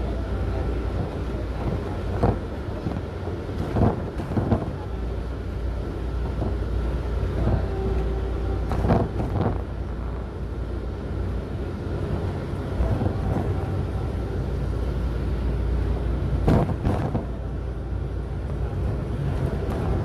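Steady low rumble of a moving vehicle heard from inside, with brief knocks every few seconds, mostly in pairs about half a second apart.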